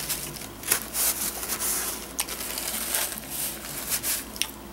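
A person chewing a mouthful of fried chicken sandwich, with irregular crackly crunches that stop near the end.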